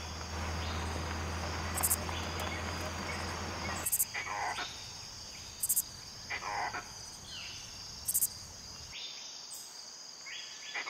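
Forest insects droning steadily at a high pitch, with short high chirps every couple of seconds and a few brief descending calls.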